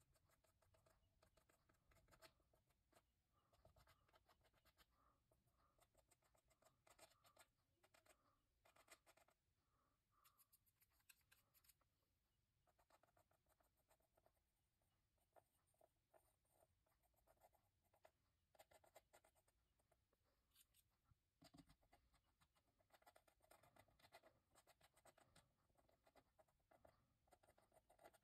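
Faint scraping of a metal palette knife spreading acrylic paint over a textured canvas, in repeated short strokes with brief pauses.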